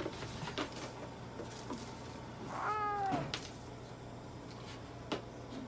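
A domestic cat gives a single meow lasting about half a second, around the middle, with its pitch dropping at the end. A few faint clicks are scattered around it.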